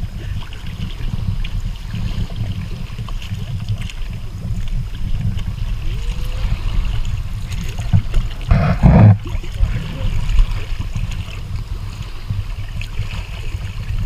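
Kayak paddles dipping and water sloshing around an inflatable kayak, over a steady, uneven low rumble. There is one louder burst about eight and a half seconds in.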